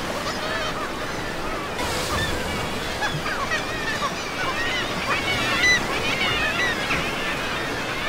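A seabird colony calling: many short, overlapping squawks and calls over a steady wash of surf and wind.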